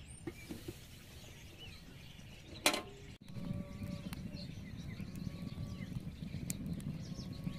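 A single sharp clank, then a wood fire burning in a clay stove from about three seconds in: a low rumble with many small crackles.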